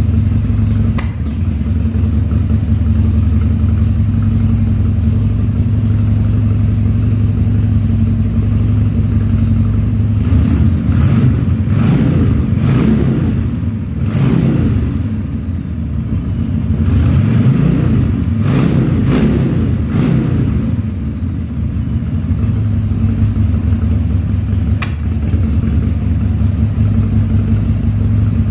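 A Harley-Davidson 1200 Sportster's Evolution V-twin running with its air cleaner off, just after a carburettor rebuild. It idles steadily, then is revved several times in quick blips through the middle before settling back to idle. The owner says it coughs a little because it is running a bit lean without the air cleaner.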